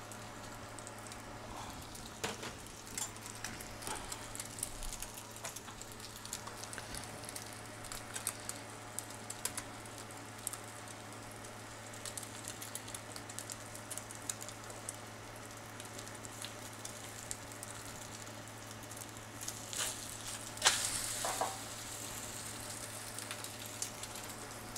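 Bean sprout pancake frying in oil in a non-stick frying pan, a steady crackling sizzle with scattered small pops over a low hum. Near the end a knock and a louder burst of sizzling as the pancake is flipped and its raw egg-and-corn side meets the hot pan.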